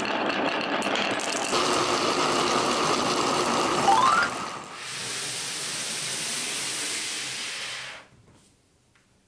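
Many glass marbles rolling and clattering together down marble-run tracks of wood and plastic, a dense rattle. About four seconds in a short rising tone sounds, then a steadier hissing rush that cuts off suddenly near the end.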